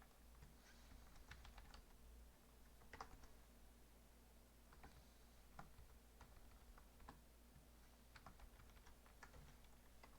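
Faint, irregular typing clicks on a computer keyboard, over a low steady hum.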